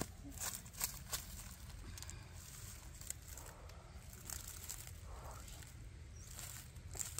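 Footsteps and rustling on dry leaf litter, with a few sharp clicks in the first second and soft rustles later, over a low steady rumble.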